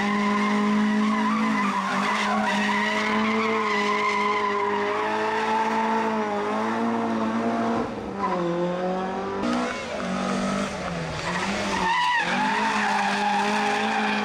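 A rally car's engine running at high revs and held there, with short lifts of the throttle about two seconds in, around eight seconds and again near twelve seconds before it climbs back up.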